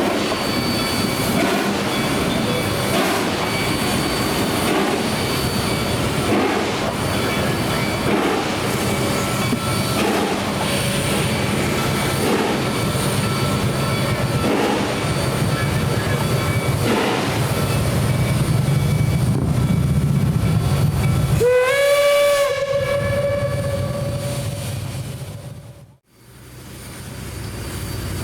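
A train running past with a heavy rumble and clatter, then about 21 seconds in the steam whistle of Reading & Northern 4-8-4 No. 2102 sounds one long note, its pitch rising slightly as it opens. The sound fades out and back in near the end.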